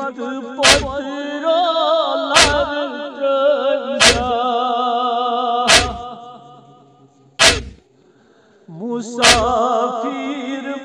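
A noha chanted by a male reciter in a long, wavering voice, set against six loud, sharp beats evenly spaced about 1.7 s apart: the rhythmic chest-beating (matam) that keeps time for the lament. The voice fades out about six seconds in and comes back near the end.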